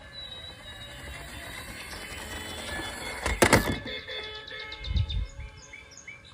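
Background music with steady held tones, broken by a sharp clatter about halfway through and a low thump near the end.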